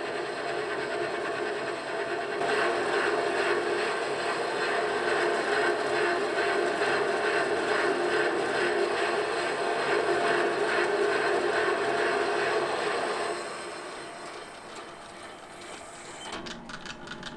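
Metal lathe running in reverse with an upside-down parting tool cutting into a cast iron engine-cylinder blank: a steady cutting noise from the tool and spinning work. The cut grows louder about two seconds in and falls away about 13 seconds in, and a few clicks come near the end.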